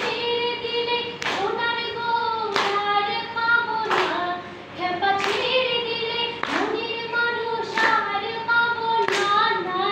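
A young woman singing a slow song, with hand claps keeping time about once every second and a quarter.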